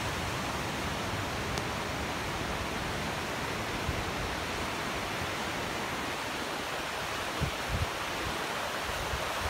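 Flood-swollen, muddy river in spate rushing steadily: a continuous even rush of turbulent water.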